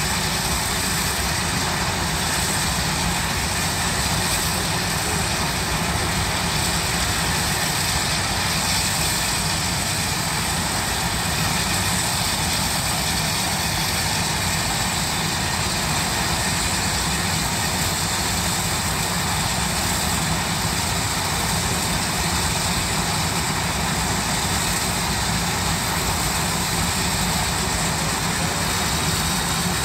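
Steam shovels working under steam, a steady mechanical rumble and hiss with no break, while sparks throw from their stacks.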